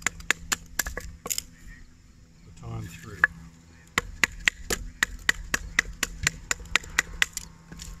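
A chunk of log used as a baton knocking on the spine of a pocket knife, driving the blade down through a small piece of firewood to split it. The quick wooden knocks come about four a second, stop for a couple of seconds in the middle, then resume.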